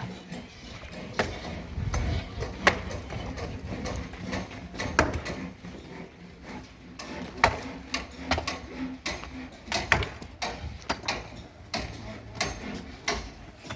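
Irregular sharp knocks and clacks of manual building work, hard objects striking one another several times over, over a low rumble.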